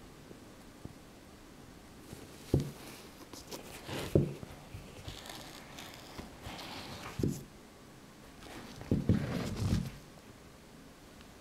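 Handling noise from a pair of Adidas Ace 16+ Purecontrol laceless football boots being turned over by hand on a tabletop: a few soft knocks and bumps, with the knit uppers rustling in between and a quick cluster of knocks near the end.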